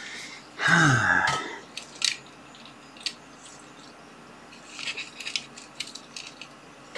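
A man's short, low grunt falling in pitch about a second in, then scattered light clicks and rustling of small items being handled and searched through.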